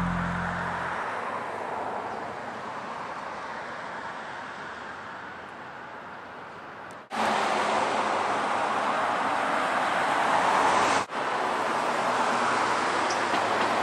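Steady, pitchless rushing outdoor background noise of the kind road traffic and wind make, with the last of some background music dying away in the first second. The noise fades slowly at first, jumps louder at an abrupt cut about halfway through, and breaks off and resumes at another cut about four-fifths of the way in.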